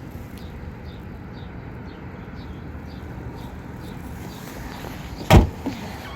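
Steady outdoor rumble with faint, evenly repeating high chirps, broken about five seconds in by one loud thump.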